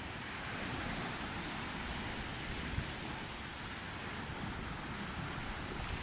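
Small waves washing onto a sandy beach, a steady wash of surf, with light wind rumbling on the microphone.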